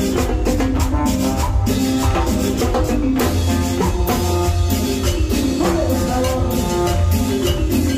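Live Latin dance music from a band playing through the stage PA, with a strong bass and a steady, regular drum beat.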